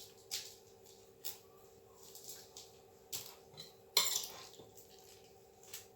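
Scattered light knocks and clinks of kitchen utensils as singaras are assembled on the counter, the loudest knock about four seconds in, over a faint steady hum.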